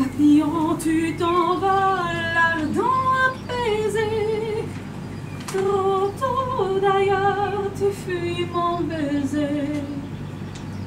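A woman singing solo, moving between held notes with vibrato and sliding in pitch between them.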